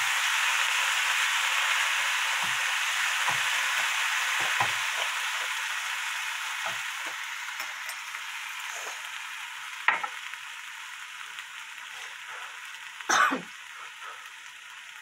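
Pork skin and onions sizzling in a frying pan, with a wooden spatula stirring and knocking lightly in the first few seconds. The sizzle slowly dies down, and two sharp knocks come near the end, the second the loudest.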